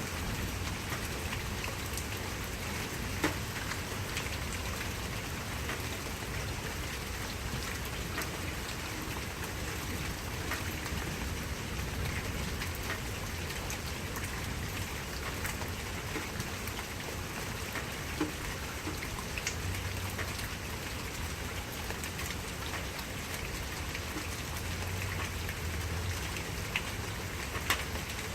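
Steady rain falling in an even hiss, with a few louder single drops ticking now and then.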